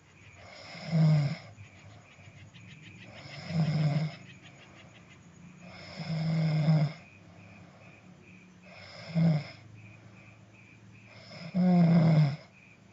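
A person snoring: five loud snores, about one every two and a half to three seconds, with quieter breathing between them. The last snore, near the end, is the longest.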